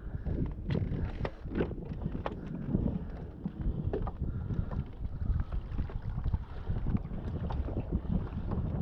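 Wind buffeting the microphone while a kayak moves through the water, with scattered light knocks and clicks throughout.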